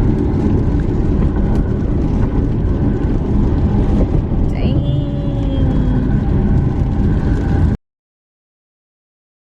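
Car on the move, heard from inside: a steady low road and engine rumble. A short pitched sound glides around five seconds in, and the sound cuts off abruptly about two seconds before the end.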